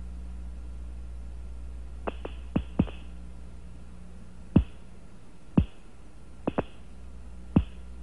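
Steady low hum on an old broadcast audio track, broken by about eight short clicks that drop quickly in pitch, coming singly and in pairs from about two seconds in.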